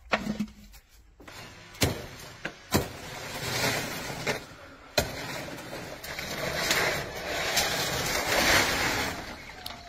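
Stiff fan-palm fronds rustling and crackling, with several sharp knocks, as a man works fronds loose in the tree.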